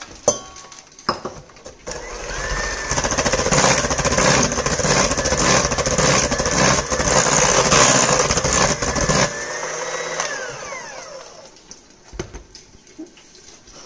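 Electric hand mixer beating an egg into creamed butter and sugar, its beaters churning in a steel bowl. It starts about two seconds in, runs with a steady whine for about seven seconds, then is switched off and winds down with a falling whine.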